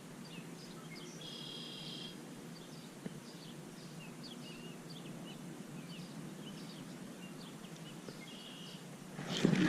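Faint outdoor ambience with birds chirping: many short chirps and a longer, steadier call about a second in. A louder rush of noise builds near the end.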